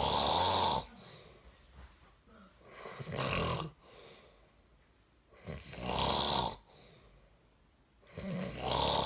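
A man snoring: four long snores, each about a second long and swelling as it goes, roughly every three seconds, with quiet breathing between them.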